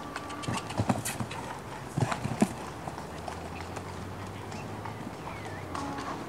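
Hoofbeats of a show-jumping horse landing after a fence and cantering on the sand arena, with several sharp knocks in the first two and a half seconds.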